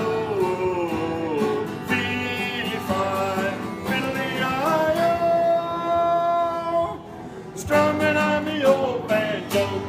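A singer sings the closing lines of a folk song to strummed acoustic guitar, holding one long note about halfway through before singing on.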